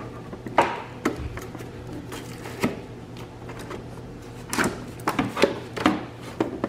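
Plastic clicks and rattles of a 2009 Hyundai Elantra's ECM wiring-harness connectors being unlatched and pulled free: a few scattered sharp clicks, then a quicker cluster of them in the last couple of seconds.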